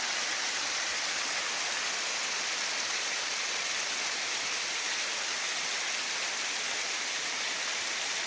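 Small waterfall rushing steadily: an even, unbroken hiss of falling water.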